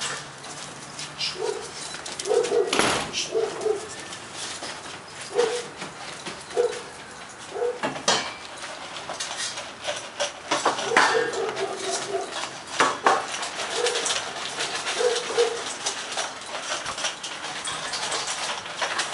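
Airedale terriers eating from stainless steel bowls: metal bowls clattering as they are set down and nosed about, with a run of quick crunching and clicking as the dogs eat. Short, low, coo-like calls repeat every second or two.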